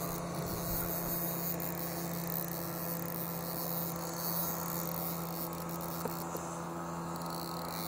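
Steady electrical hum: one low, unchanging pitched tone with overtones.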